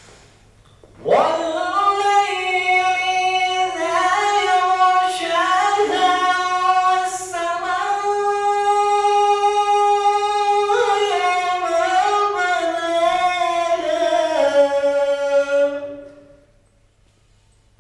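Quran recitation: a man's voice chants one long, unaccompanied melodic phrase with drawn-out held notes, starting about a second in and ending on a falling note near the end.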